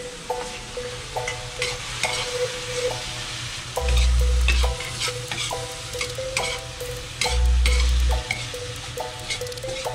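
A metal spoon stirring string beans sizzling in a frying pan, with frequent clicks of the spoon against the pan. Background music with a repeating melody plays throughout, and two deep booms, each about a second long, sound about four seconds in and near the end.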